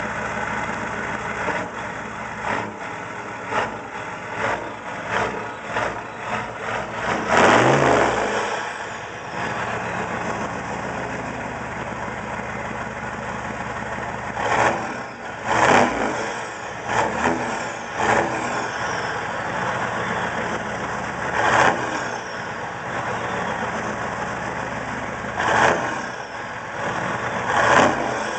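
A 1995 Chevy pickup's 6.5-litre turbo-diesel V8, straight-piped from the manifold back through chrome stacks, idling and being revved in short blips: a quick run of small blips in the first seconds, a bigger rev about seven seconds in, then single revs every few seconds. A high whistle falls away after some of the revs.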